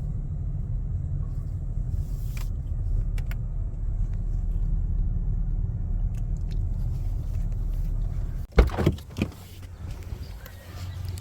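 Car running at low speed, heard from inside, a steady low rumble of engine and tyres. About eight and a half seconds in the rumble stops abruptly and a few sharp knocks and clunks follow.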